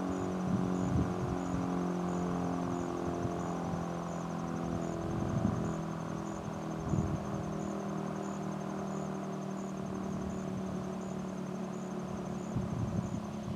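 Insects chirping in a steady rhythm, a little faster than one chirp a second, over a low steady hum with several tones and a few soft bumps.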